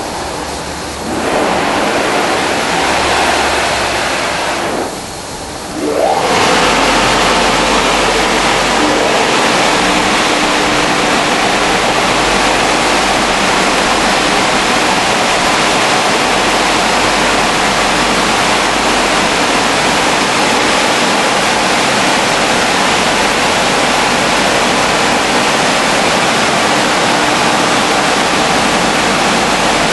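Automatic rollover car wash gantry running over a car: a loud, steady rushing hiss that fades briefly about five seconds in and returns stronger at about six seconds.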